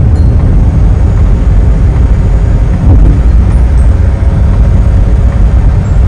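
In-cabin driving noise of a kei camper van at speed: a steady low rumble of road, wind and engine, with a brief louder bump about halfway through.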